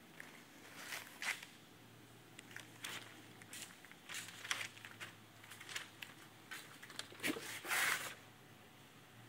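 Handling rubs and footsteps: a scatter of short clicks and scuffs. Near the end comes a louder half-second rattle and scrape as the GMC Yukon's front door is opened.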